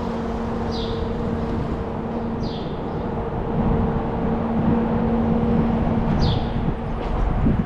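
Car engine humming steadily with road noise, getting louder about three and a half seconds in as the car pulls away. A short, high, falling chirp repeats every couple of seconds over it.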